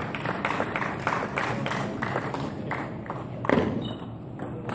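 Table tennis rally: the ball clicking off bats and table about three to four times a second, with one louder knock about three and a half seconds in.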